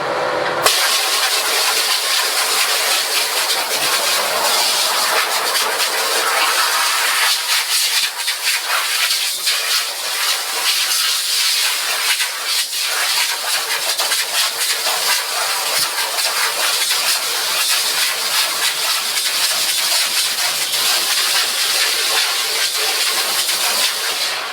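Portable tank-fed pressure washer spraying a steady jet of water onto a screen-printing screen, a loud even hiss that starts abruptly just under a second in. It cuts off suddenly near the end as the water tank runs dry.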